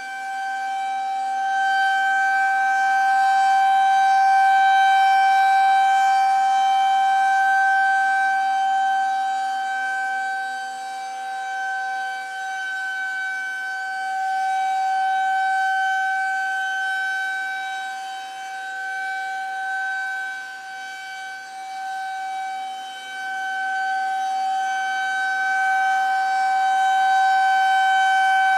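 Federal Signal 2001-130 rotating electromechanical outdoor warning siren sounding a steady, unchanging tone at full pitch. Its loudness swells and fades about every ten seconds as the siren head turns toward and away from the listener.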